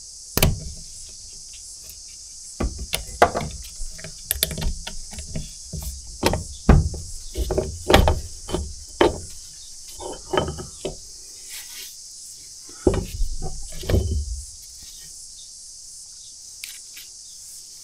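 Irregular metal clinks and knocks of a Kubota B7100's hydraulic lift-unit parts being worked loose and handled on a workbench, as the lift arm is pulled out of its housing. The knocks come thick for about fourteen seconds, then stop.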